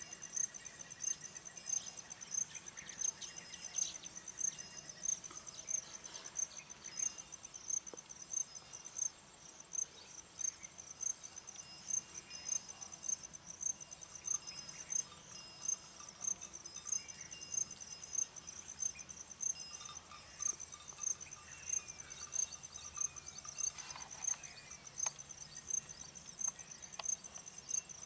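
Cricket chirping in a steady, even rhythm, a high-pitched chirp about one and a half times a second.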